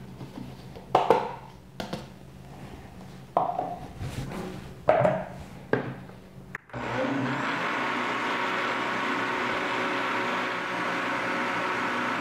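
A few knocks and clunks at a countertop blender jar as a cup of flour is tipped in and the lid is set on. Then, about seven seconds in, the blender motor starts suddenly and runs at a steady speed, mixing thin pancake batter.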